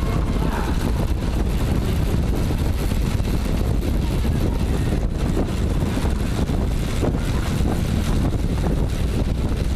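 Steady rush of wind over the microphone of a camera riding on a track bike at racing speed, mixed with the rolling hum of tyres on the velodrome's wooden boards.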